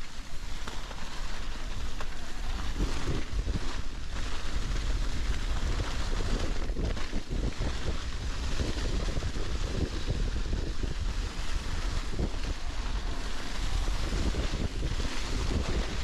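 Wind noise buffeting the microphone of a mountain bike in motion, mixed with its tyres rolling over a trail covered in dry fallen leaves.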